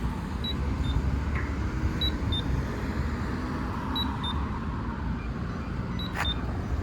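Campbell 4EVR accessible pedestrian push button sounding short, high two-note beeps, the second note slightly lower, repeating about every two seconds, over steady road traffic.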